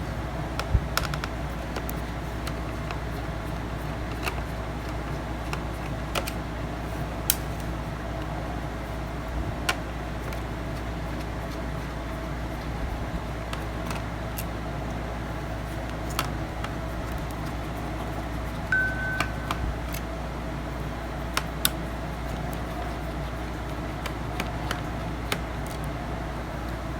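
Scattered light clicks and taps from handling a laptop's plastic and metal parts during disassembly, over a steady background hum. One short high beep or squeak sounds about two-thirds of the way through.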